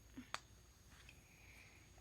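Near silence: room tone, with a single faint click about a third of a second in.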